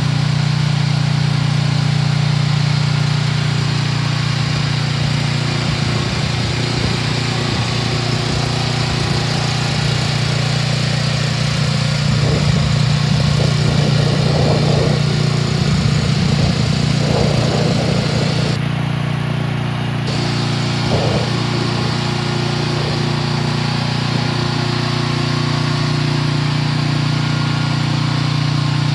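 AGT Industrial L12 mini excavator's small engine idling steadily, an even hum that holds its pitch throughout.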